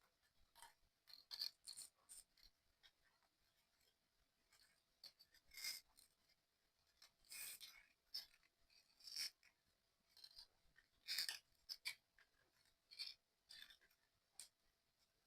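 Faint, irregular clicks and short scrapes of small model-kit parts being handled and pressed together during assembly of a 3D puzzle excavator.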